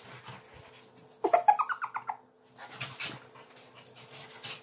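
Two dogs, a Siberian husky and a large white dog, play-wrestling. About a second in, one gives a single rising whining call nearly a second long, followed by scuffling sounds of the play-fight.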